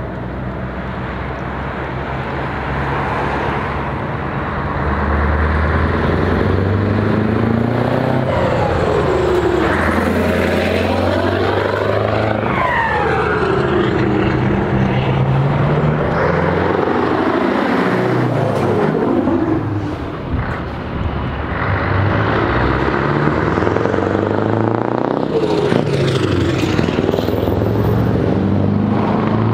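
Heavy trucks, among them a Scania tractor unit with tall open exhaust stacks, driving past one after another with loud pipes. The engine note repeatedly rises and falls as they pull through the gears and pass by.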